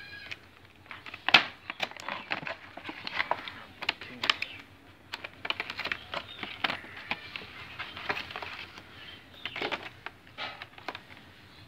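Stiff clear-plastic blister packaging crackling and clicking as hands flex and pry it open, in irregular sharp clicks with the loudest a little over a second in.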